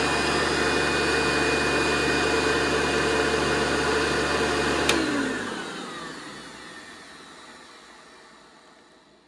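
2000 Hoover Runabout Ultra vacuum cleaner running steadily, then switched off with a click about five seconds in. The motor winds down with a falling whine and fades out over the last few seconds.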